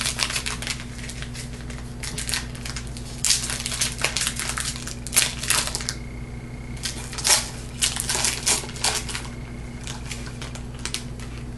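Foil wrapper of a Topps football card pack crinkling and tearing as it is ripped open, in bursts of crackling with short pauses between.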